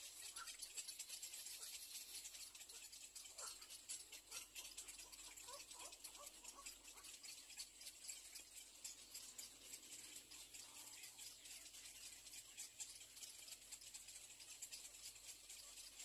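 Near silence: faint outdoor ambience with a steady high hiss and fine crackle, and a few faint short chirps in the first half.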